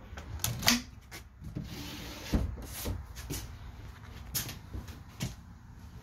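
An RV refrigerator door being pushed shut, with a loud knock about half a second in, followed by several lighter knocks and clicks.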